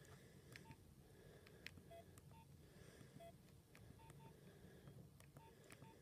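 Nokia 7100 Supernova keypad tones: about eight short, quiet beeps at two pitches, one for each press of the navigation key while stepping through the menus. Faint sharp clicks of the keys are heard between them.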